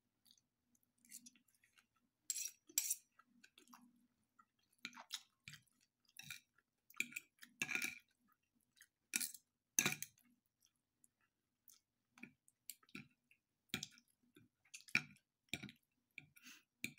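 Eating sounds: a fork and knife tapping and scraping on a ceramic plate, mixed with chewing. The sounds come as short, scattered clicks and knocks, a few of them sharper than the rest.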